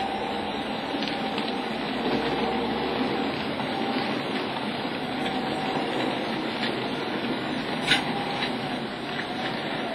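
Model Class 37 diesel locomotive running on a model railway layout, its motor whirring steadily and the wheels of the locomotive and its hopper wagons clicking over the track. There is one sharp knock about eight seconds in.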